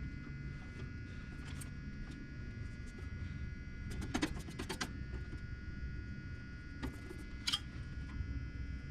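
Sander parts and fasteners being handled and fitted back together on a Dayton belt and disc sander: a quick run of clicks about four seconds in, then a single click and a short scrape near the end, over a steady room hum.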